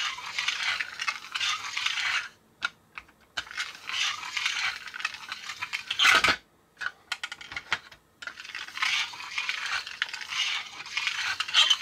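Hand-pushed plastic tone-arm unit of a 1968 Whitman Sound A Round talking toy running its needle around the record, giving scratchy, hissy groove noise in stretches of a couple of seconds with short pauses. There is one louder knock about six seconds in. The toy plays poorly, which the owner puts down to a worn centre post.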